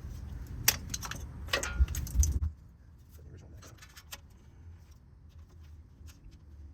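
Metal clinks and taps of tools and parts while a distributor is being unbolted and lifted out of an air-cooled VW Beetle engine. Several sharp clinks come in the first couple of seconds, then only faint scattered ticks.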